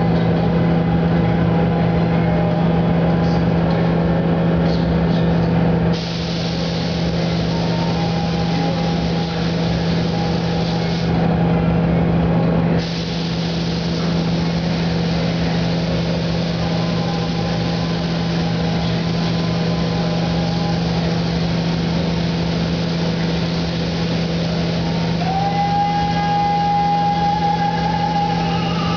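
Gravity-feed paint spray gun hissing on compressed air as clear coat goes onto a car body. The hiss starts about six seconds in, stops for about two seconds near eleven seconds, then runs on. Under it runs a steady low machine hum.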